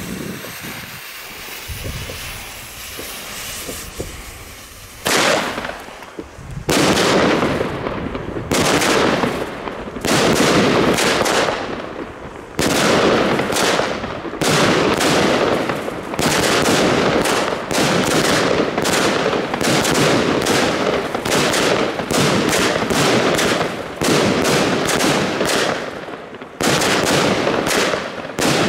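Three linked Blackboxx firework batteries (cakes): the fuse hisses for about five seconds, then the cakes fire shot after shot. Dense cracking bangs and crackle come in loud waves every second or two.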